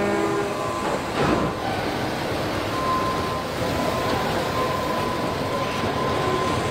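Steady machinery noise of a car-body assembly line with industrial robots. A brief swell comes about a second in, and a thin steady whine sets in about three seconds in.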